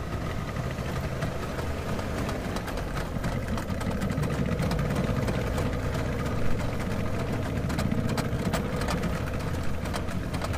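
Motorboat engine running at a steady pitch under way, a constant drone over a low rumble.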